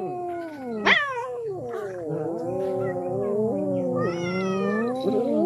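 Two or more domestic cats yowling at one another in long, overlapping, wavering calls, with a short sharp rising meow about a second in: a standoff among cats crowding around food.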